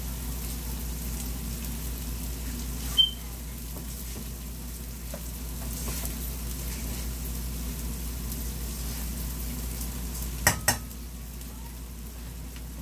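Flour-dusted chicken wings frying in oil at medium heat: a steady sizzle. A sharp metallic clink about three seconds in, and two quick knocks near the end.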